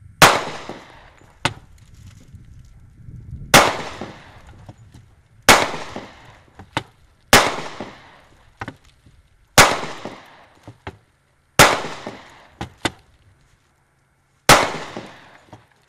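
Seven .45-calibre gunshots, about two to three seconds apart, each with a short echo, as the rounds punch through the glass panes of a wooden door. Fainter sharp cracks come between some of the shots.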